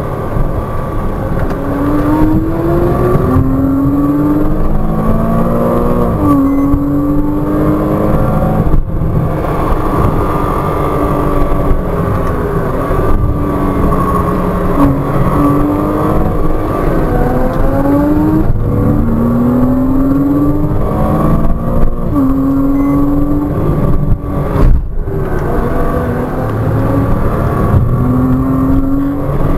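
Porsche Cayman 987.2's 2.9-litre flat-six heard from inside the cabin, revving up again and again under hard acceleration and dropping back with each braking and downshift on a twisty road.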